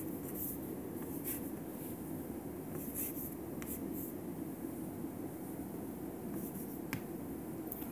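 Chalk writing on a chalkboard: short scratchy strokes and a few sharp taps, scattered irregularly, over a steady low background hum.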